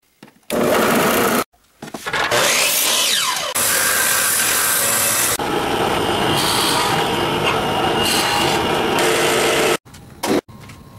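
Power saw running and cutting through a wooden board, in short edited clips with abrupt cuts between them. Near the end it gives way to a quieter, steady machine hum as a wood lathe is switched on.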